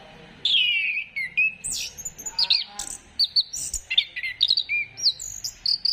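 Orange-headed thrush (anis kembang) singing a rapid, varied phrase of clear whistled notes, many sliding up or down, starting about half a second in.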